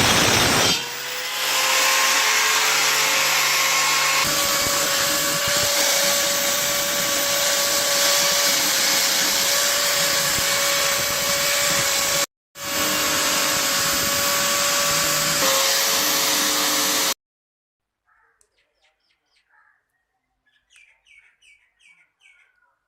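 A power tool running steadily, a loud hiss with a constant whine, broken by a couple of abrupt cuts, stops about three-quarters of the way through. Faint bird chirps follow in near silence.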